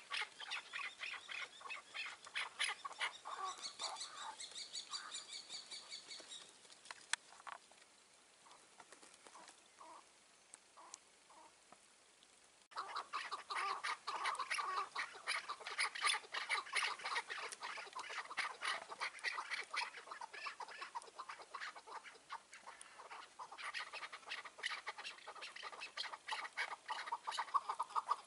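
Chukar partridges calling: fast runs of repeated clucking 'chuck' notes. The calling dies down to a few faint notes about a third of the way in, then starts up again suddenly at full strength.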